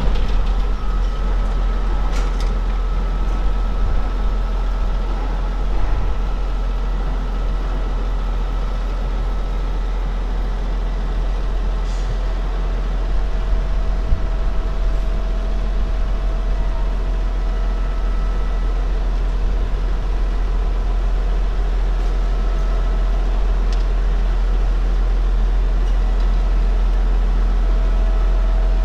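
Railway turntable slowly rotating with a rail vehicle on it: a steady, loud low rumble with a faint steady whine over it and an occasional light click.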